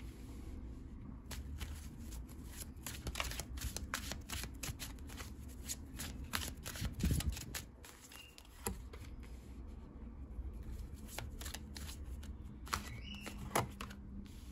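A deck of cards being shuffled by hand: a long run of quick, irregular card flicks and slides.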